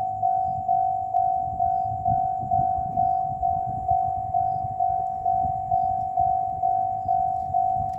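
Japanese railway level-crossing warning bell, ringing a single high tone about twice a second, each strike fading before the next. Under it runs a low rumble.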